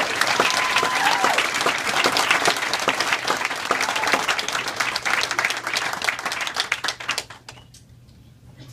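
Audience applauding at the end of a song, with a voice briefly calling out about a second in; the clapping dies away about seven seconds in.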